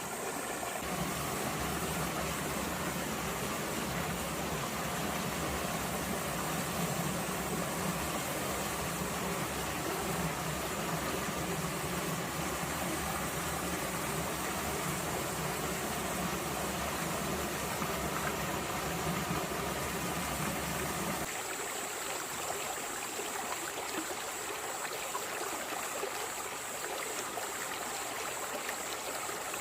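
Stream water running over rocks. A steady low engine-like hum sits under it from about a second in and cuts off suddenly about two-thirds of the way through.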